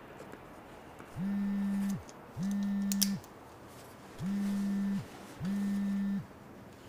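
Smartphone vibrating for an incoming call: two pairs of short buzzes with a low, steady hum.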